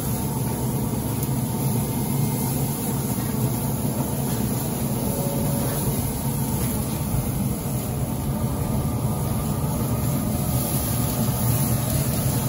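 Weber SmokeFire pellet grill burning hot with its lid open: a steady low hum and rush from its fan-fed fire, with flames flaring up through the grates under the burgers.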